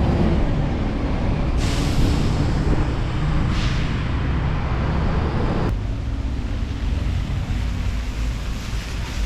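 Low rumble of a running vehicle, with two short air hisses about two and four seconds in. A little before six seconds in, the sound changes abruptly as the mid-range drops away, leaving a quieter rumble.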